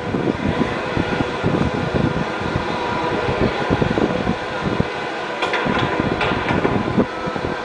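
Steady rushing background noise, like a fan or air conditioning, with a few faint clicks of pool balls striking about five and a half seconds in.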